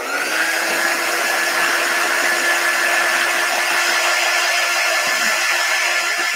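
Handheld craft heat tool (embossing heat gun) switched on and running: a steady fan whir with a high whine that rises briefly as the motor spins up, then holds level. It is blowing hot air to dry chalk paste.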